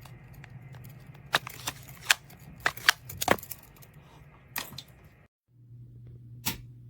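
About a dozen irregular sharp clicks and taps of small hard objects being handled, over a steady low electrical hum. The sound cuts out abruptly about five seconds in, then the hum returns with one more click.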